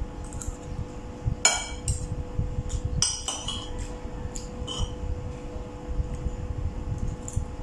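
Metal spoon and fork clinking against a ceramic bowl of rice while eating: several short, light clinks spread through.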